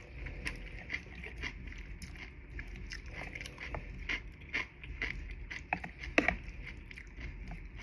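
Close-miked chewing: wet mouth clicks about twice a second, with one sharper, louder click a little past six seconds in.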